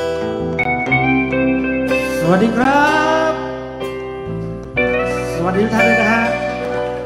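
Live band playing an instrumental passage: an electric guitar solo with bent, gliding notes over sustained keyboard chords and a steady band backing.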